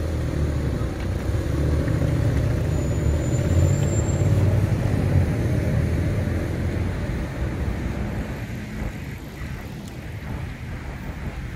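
Road traffic: a motor vehicle's engine running close by, loudest over the first half and fading in the last few seconds.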